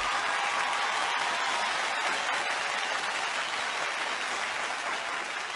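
Studio audience applauding steadily, the clapping easing off slightly toward the end.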